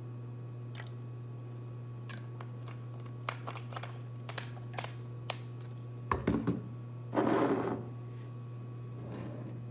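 Plastic soda bottle being capped and handled: a quick run of small sharp clicks, then two louder rustling knocks, over a steady low hum.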